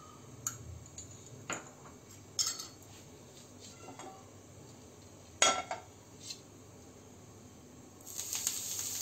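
A handful of separate clinks and knocks of a steel spoon and a ceramic-coated frying pan on a gas burner as ghee is spread in the pan, the loudest about five and a half seconds in. Near the end, chopped fenugreek leaves dropped into the hot ghee start to sizzle steadily.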